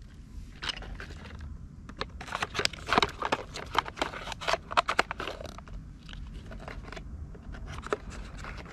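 Hard plastic toy wheels clicking and clattering as they are handled and pushed onto the axles of a plastic toy excavator, a quick run of clicks in the middle that thins out toward the end.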